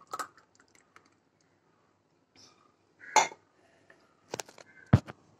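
Steel tumbler and drinking glasses clinking and knocking against a stone counter as a thick drink is poured out: a few separate sharp clinks, the loudest a deeper knock near the end.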